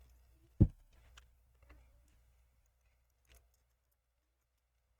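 A single dull knock about half a second in, then a few faint small clicks, from screwdriver work on a laptop hinge: T8 Torx screws being driven into a MacBook Pro's display hinge.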